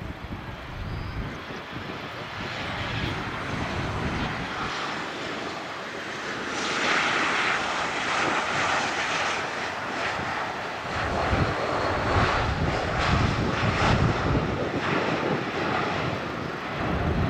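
Boeing 737-900 jet airliner landing, its CFM56 turbofan engines running with a steady jet noise. It grows louder about six or seven seconds in as it touches down, and a heavier low rumble builds as it slows down the runway.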